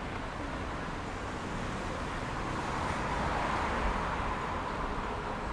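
Road traffic noise on a busy city street, swelling as a vehicle passes about three to four seconds in.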